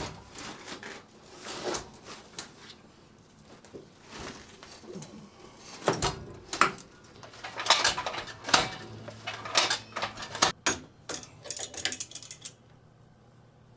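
Irregular metallic clinks and knocks as a stiff length of ribbed steel rebar is worked and bent into a hook, stopping near the end. A faint steady hum runs underneath.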